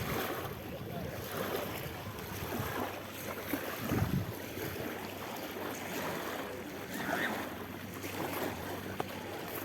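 Steady noise of sea waves and wind, with a brief low bump about four seconds in.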